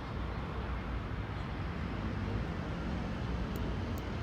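Steady low rumble and hiss of harbourside ambience by a large moored cruise ship.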